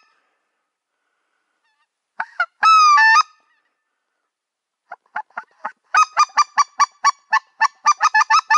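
Geese calling: one long, high yelping call that glides down and up about two and a half seconds in, then from about five seconds a fast run of short yelps, four or five a second.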